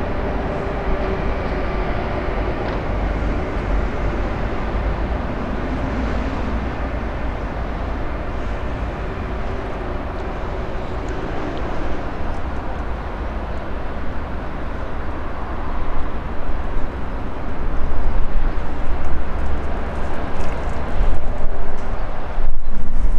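DB Class 152 electric locomotive running slowly, a steady rumble and hum with faint steady tones in the first seconds. Near the end it grows louder and uneven, with heavy low rumbling.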